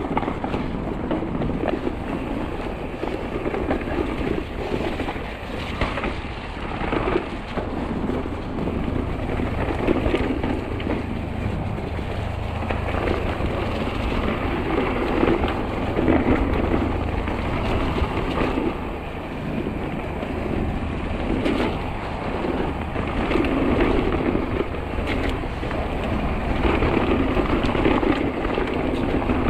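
Mountain bike rolling down a trail: an uneven rumble of tyres over the ground, swelling and easing, with wind buffeting the microphone and a few sharp rattles.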